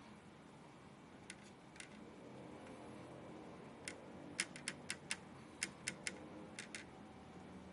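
Faint, sharp clicks of small hardware being handled, such as screws and tools on a graphics card: two isolated clicks a little over a second in, then a quick run of about ten in the middle of the stretch.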